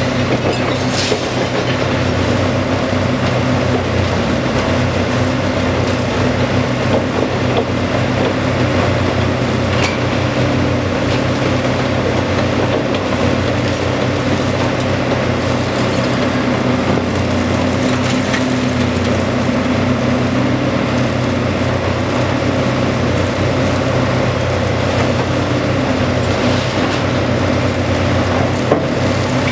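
Long-reach demolition excavator's diesel engine running steadily under working load, a constant low drone. A few sharp knocks and clatters of concrete debris break through it.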